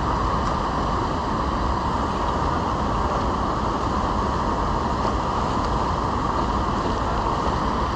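Steady rush of river water spilling over a low concrete dam or weir.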